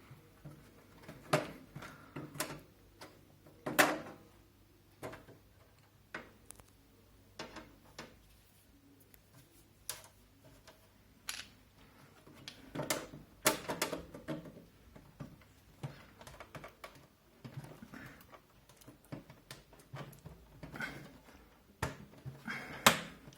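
Irregular plastic clicks, knocks and creaks from prying at the front panel of a Zalman Z11 Neo PC case, its retaining clips stuck fast. The sharpest knocks come about four seconds in and near the end.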